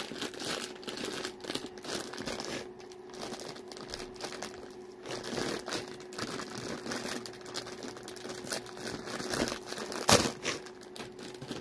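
Plastic candy wrapper crinkling and crackling in the hands as it is opened, with one sharper, louder crackle about ten seconds in.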